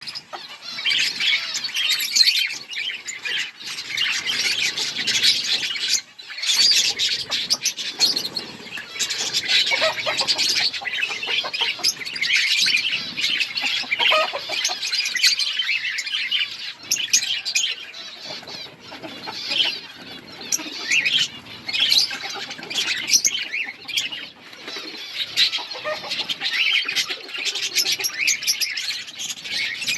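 A colony of budgerigars chirping and chattering continuously, many birds calling over one another in a dense, unbroken chorus of quick high chirps.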